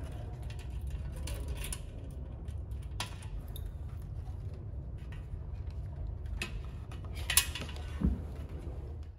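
Scattered metallic clicks and light clatter from a metal wall-mounted kiosk enclosure being handled, its security-key lock just turned open. The sharpest click comes about seven seconds in, followed by a dull thump, over a steady low rumble.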